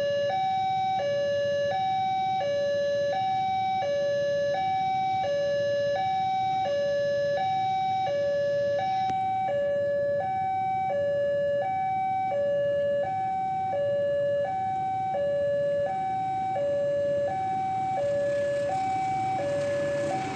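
Railway level-crossing warning alarm sounding as a train approaches: an electronic two-tone signal alternating high and low, about one high-low cycle a second. A low rumble grows underneath it near the end.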